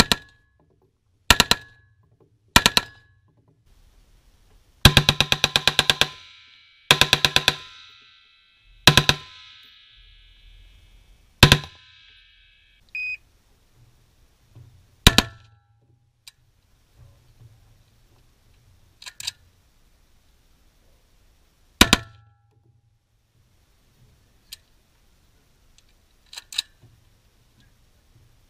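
AR-pattern rifle firing: two single shots, then two fully automatic bursts of about a second each, then single shots spaced a few seconds apart, fainter ones near the end. Each report is followed by a short ringing echo.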